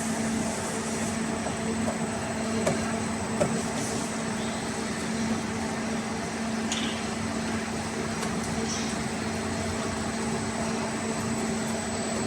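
CNC arch-bending machine running: a steady motor hum with a few light clicks.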